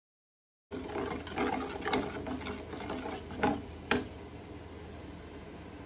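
A plastic spoon stirring thin flour-and-egg batter in a bowl: irregular wet scraping with a few sharp knocks of the spoon against the bowl, the last two the loudest. It then settles to a faint steady hiss.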